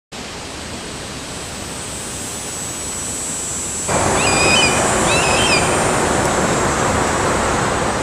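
Steady rushing wind noise over the microphone, outdoors in an open field, growing louder after a cut about four seconds in. Just after the cut a bird gives two short calls about a second apart.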